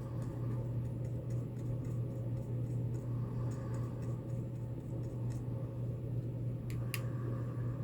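A steady low hum with faint scratching and ticking as solder is lifted from circuit board pins, with two sharper clicks about seven seconds in.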